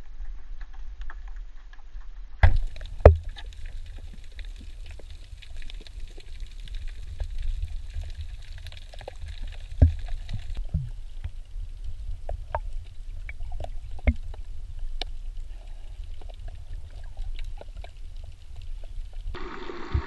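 Underwater sound picked up by a submerged action camera: a steady low water rumble with scattered sharp clicks and knocks. The loudest knocks come a couple of seconds in and again near ten and fourteen seconds.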